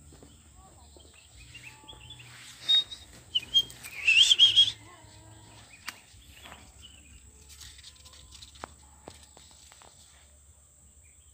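A bird calling: a few short, loud, high chirps just under three seconds in, then a louder warbling call just after four seconds. Faint scattered clicks otherwise.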